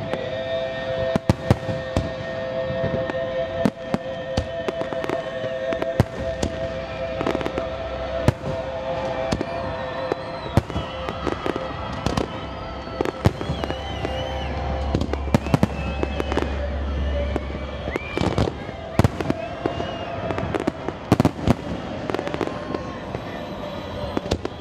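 Fireworks display: many sharp bangs of aerial shells bursting at irregular intervals, some in quick clusters, over a continuous crackle and rumble.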